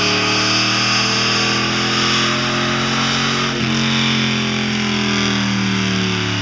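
Supercharged Ford F-150 engine at full throttle on a chassis dyno, its pitch climbing steadily. About halfway through the revs dip briefly as the transmission upshifts, then climb again, and they start to fall right at the end as the pull finishes.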